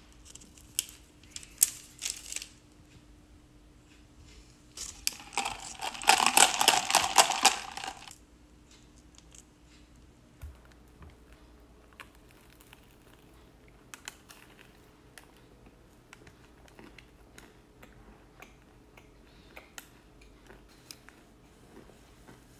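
Paper bag and wax paper crinkling as a sandwich is unwrapped and handled. The crinkling is loudest for about three seconds, starting about five seconds in. Scattered light clicks and taps of handling come before and after.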